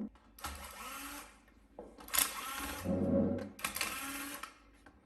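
A small motor whirring in three short bursts with brief pauses between them.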